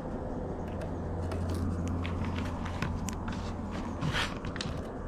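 Light clicks and small scrapes of a tape measure and pencil marking out hole positions on a wooden board, with one louder scrape about four seconds in, over a steady low hum.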